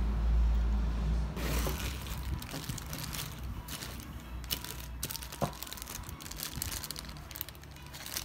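Small zip-lock plastic bags holding enamel pins crinkling and rustling as hands rummage through a pile of them, with a few sharper clicks. A low rumble comes before it in the first second and a half.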